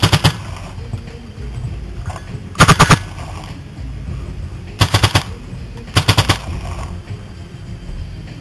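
Paintball marker firing in four quick bursts of about four to six rapid shots each, spread over roughly six seconds.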